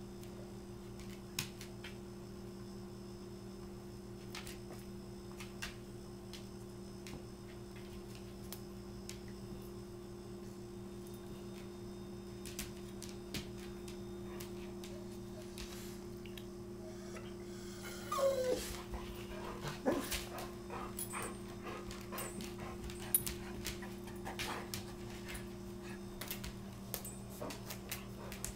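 Dog wrestling with a kitten on a tile floor: a short whine about 18 seconds in, then scattered light clicks and taps of claws and paws on the tiles, over a steady low electrical hum.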